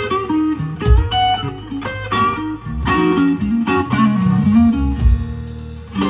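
Electric guitar playing a slow blues lead live, single notes, some bent, over lower accompanying notes.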